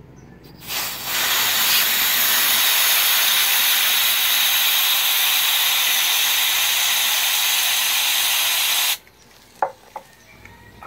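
Butane canister spraying gas in one long, steady, loud hiss against a small plastic bag of water to freeze it. The hiss starts about a second in, lasts about eight seconds and cuts off suddenly, followed by two short knocks.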